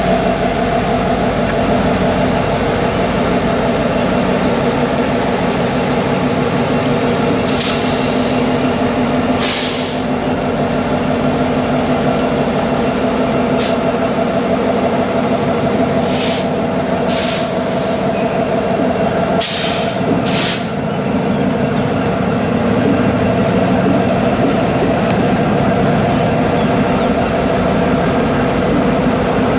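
EMD SD70ACe diesel-electric locomotive passing slowly at the head of a freight train, its diesel engine running with a steady drone. Several short hisses of air cut in between about a quarter and two-thirds of the way through.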